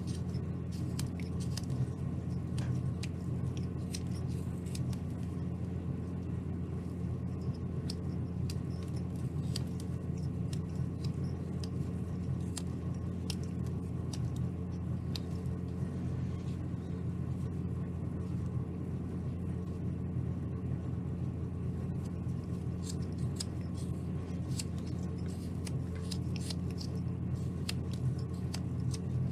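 Carving knife making short paring cuts into a small basswood ball: a series of crisp little slicing scrapes and ticks, irregularly spaced, over a steady low hum.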